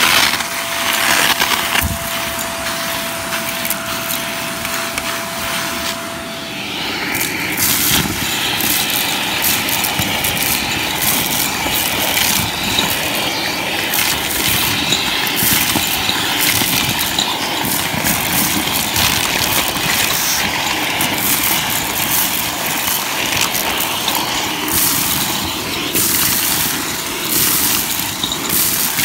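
Shark vacuum running with its crevice tool sucking up dirt and small hard debris, which crunches and rattles rapidly up the wand. A steady whistling tone sounds over the motor for the first six seconds and again near the end.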